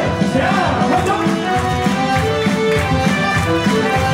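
Baseball cheer song for Team Taiwan playing loudly: a melody of held notes over a steady drum beat, with a few gliding sung or chanted notes in the first second.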